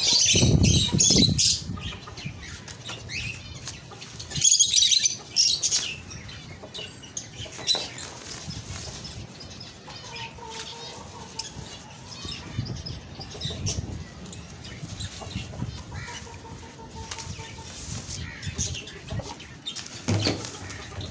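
Small caged birds, budgerigars and finches, chirping and fluttering their wings, with louder bursts of chirping in the first second and again at about four to six seconds.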